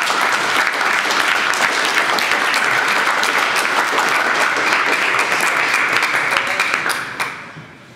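Spectators applauding after a table tennis point: a dense patter of many hands clapping that dies away about seven seconds in.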